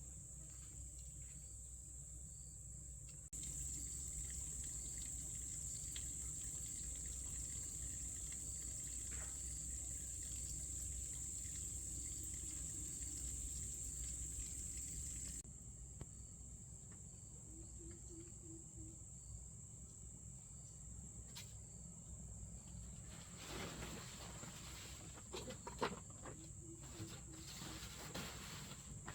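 An outdoor insect chorus: a steady, high-pitched drone that grows louder for about twelve seconds after a few seconds in, then drops back. It sits over a low rumble, with a few rustles and knocks near the end.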